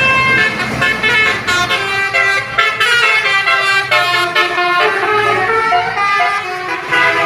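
Basuri telolet multi-tone horn playing a quick melody, its notes changing pitch every fraction of a second, with a low hum underneath for most of it.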